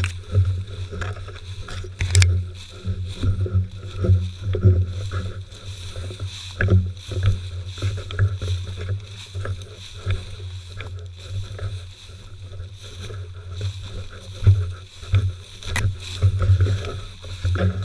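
Dry grass and brush rustling and swishing against a dog-mounted camera as a Weimaraner pushes through cover, with uneven low thumps from its stride and a few sharp snaps of stems.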